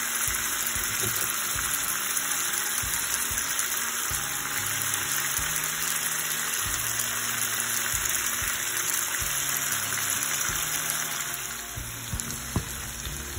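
Hilsa fish curry simmering in a pan, its spiced gravy sizzling with a steady hiss, growing quieter in the last couple of seconds.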